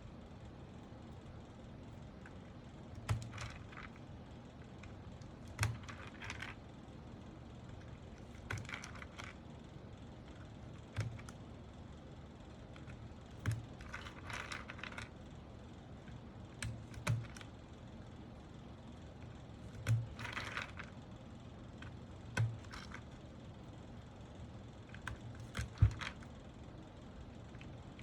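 Mechanical keyboard parts being handled during assembly: a short knock with a brief clinking rattle roughly every two to three seconds.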